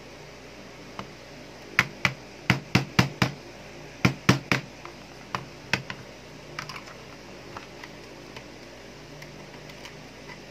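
A hammer striking the end of a screwdriver used as a punch to drive a steel pin out of a spring airsoft pistol's slide: about eleven sharp knocks in quick groups of two to four, then a few faint taps.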